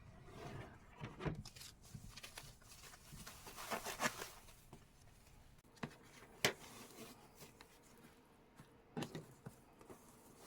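Faint packing-handling noises: rustling and rubbing with a few sharp taps and knocks, the sharpest about six and a half seconds in.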